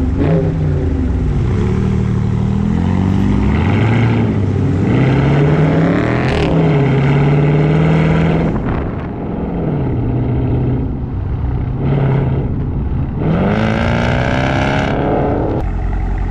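Loud V8 car engine revving up and down repeatedly, its pitch rising and falling. There is a sharp blip about six seconds in, and a long climb near the end that drops off suddenly.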